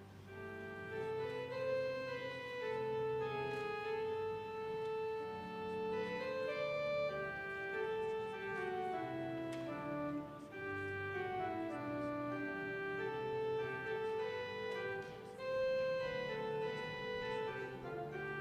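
Church organ playing a hymn in slow, sustained chords.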